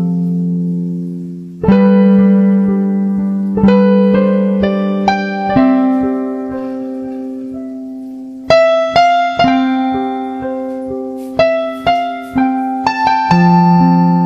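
Slow piano music: chords and single notes struck and left to ring out.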